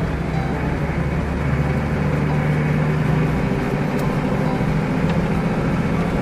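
Four-wheel-drive vehicle driving along a dirt track: a steady low engine hum under continuous road and tyre noise.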